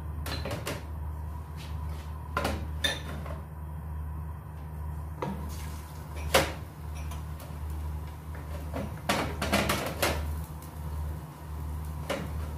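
A wooden spoon knocking and scraping against a stainless steel pot, the loudest knock about six seconds in, as minced garlic is stirred in hot oil; a faint sizzle of the garlic frying comes in about five seconds in. A steady low hum runs underneath.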